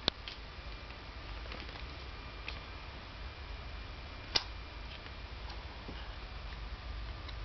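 Light clicks from handling a cordless mouse fresh out of its box, with one sharp click about four seconds in, over a steady low hum.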